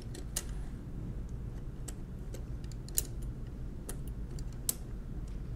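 Scattered light metal clicks and taps from the key bars of a 1920s Monroe Model K mechanical calculator's keyboard, lifted and slid onto their pins by hand. The clicks come at irregular moments over a low, steady hum.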